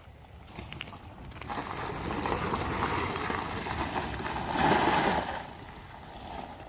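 Golf cart driving along, its running noise building a couple of seconds in, loudest about two-thirds of the way through, then easing off near the end.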